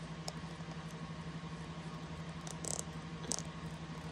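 A few faint plastic clicks and rustles as the nozzle cap of a Brother BTD60BK ink bottle is handled, over a steady low hum.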